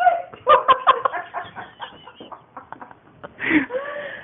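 Stifled giggling in short broken bursts, about half a second in and again about three and a half seconds in, with soft rustling and clicks between.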